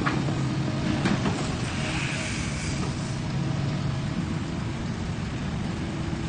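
Kobelco SK210 excavator's diesel engine running steadily while its hydraulic arm works the bucket through gravel. Sharp knocks come at the start and again about a second in.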